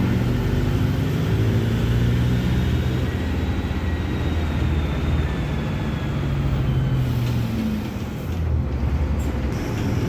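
Mercedes-Benz OF-1721 Bluetec 5 bus chassis's four-cylinder turbo diesel engine running under way, its revs rising and falling. The revs drop briefly about eight seconds in, then climb again.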